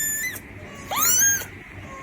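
A kitten mewing in short, high-pitched calls: one trails off just after the start, and another rises sharply in pitch about a second in.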